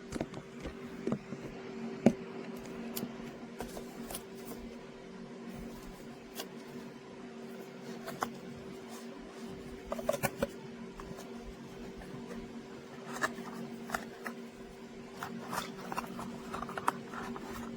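Scattered clicks, taps and rustles of a small product box and its packaging being handled, over a steady low hum.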